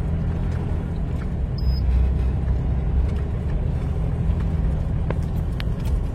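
Semi-truck's diesel engine running with a steady low rumble, a few light clicks or rattles near the end.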